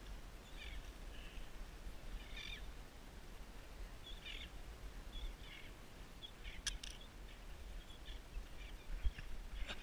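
Birds calling in short chirps, one every second or so, over a low steady rumble. Two sharp clicks come in the second half.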